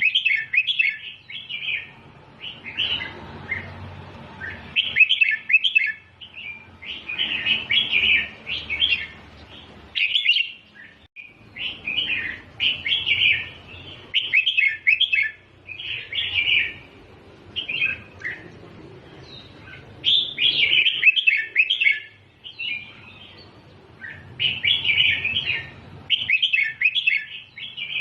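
Red-whiskered bulbul singing in the doubled-note (เบิ้ล) style used as tutor song for young bulbuls: quick chattering phrases of one to two seconds, repeated again and again with short pauses between them.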